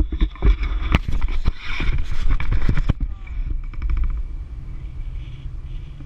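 Wind buffeting an action camera's microphone in paraglider flight: a steady low rumble, with a cluster of sharp knocks and crackles in the first three seconds and a quick rattle about three and a half seconds in, after which the rumble settles.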